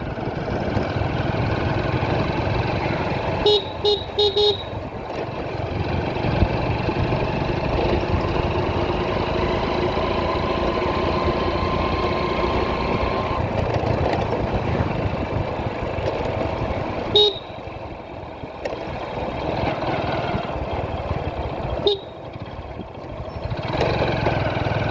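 Motorcycle riding through traffic: steady engine and road noise, broken by short horn beeps, three quick ones a few seconds in and single ones about two-thirds and seven-eighths of the way through.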